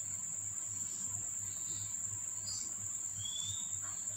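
Steady high-pitched chirring of insects, with a faint short chirp about three seconds in.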